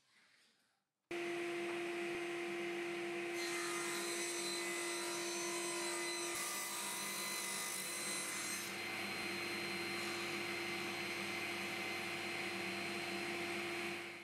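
Axminster AW254TS cast-iron table saw with an induction motor running and ripping a plywood board along its rip fence. The sound starts abruptly about a second in and runs steadily, with a constant tone under the cutting noise.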